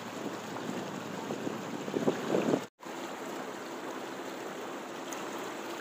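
Floodwater splashing and rushing against the side of a vehicle moving through it. The sound drops out for a moment a little before halfway, then carries on.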